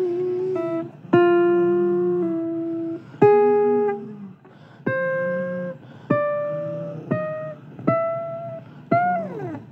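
Guitar playing a slow line of single plucked notes, about eight of them, each ringing for roughly a second. The last note slides down in pitch near the end.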